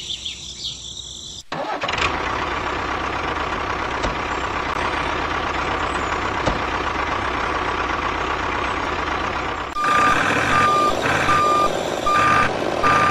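Birds chirping for about the first second and a half, then a sudden switch to a vehicle engine running steadily. About ten seconds in, a reversing alarm starts, beeping in short repeated beeps over the engine.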